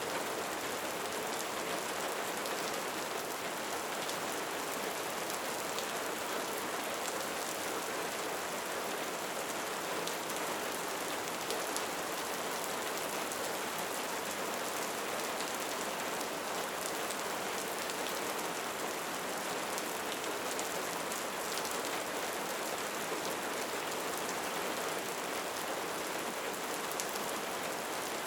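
Steady rain, a dense, even patter of drops that neither builds nor eases.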